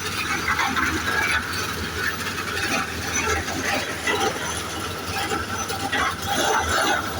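Concrete mixer running steadily, with continual rattling and clatter over a low engine hum.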